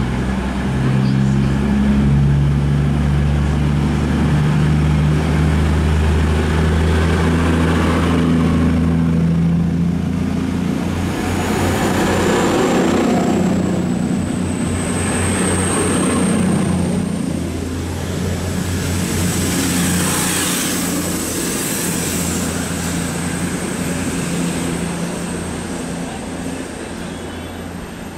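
CrossCountry Voyager diesel multiple unit pulling away and accelerating past: the drone of its underfloor diesel engines, a swell of rumble as each coach goes by, and a thin high whine that rises near the middle. The sound fades over the last few seconds as the train draws away.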